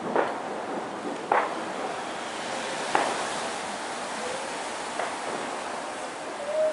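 Distant fireworks going off: four sharp bangs, irregularly one to two seconds apart, each with a short echoing tail, over a steady background hiss.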